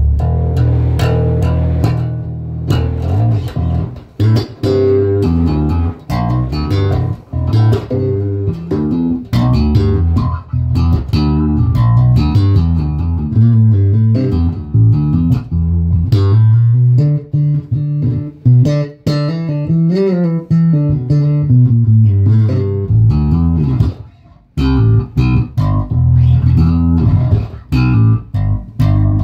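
Electric bass guitar played fingerstyle: a continuous run of plucked low notes, with notes sliding up and down in pitch in the middle and a brief break about twenty-four seconds in.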